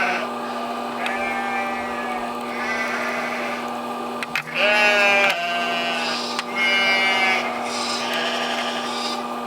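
Several drawn-out high squeals, each about a second long, over a steady mechanical hum.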